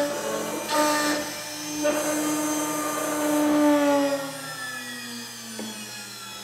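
Small CNC engraving machine's high-speed spindle whining as the cutter engraves plastic engraving laminate, with louder bursts of cutting noise. About four seconds in the whine falls in pitch and level as the spindle winds down with the job finished.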